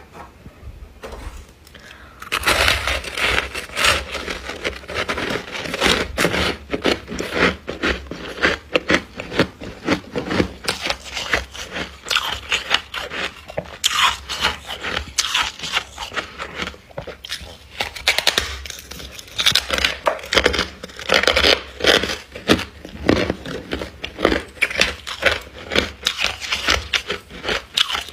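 Thick, powdery freezer frost being scraped and broken off in chunks: a dense run of crunching and crackling that starts about two seconds in.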